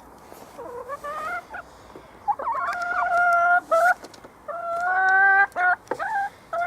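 Backyard hens calling: a run of drawn-out, held calls, each about a second long, mixed with a few short ones.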